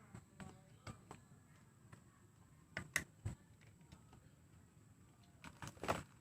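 Scattered clicks and knocks from handling a metal detector's battery compartment while fitting 9-volt batteries, with the loudest cluster near the end.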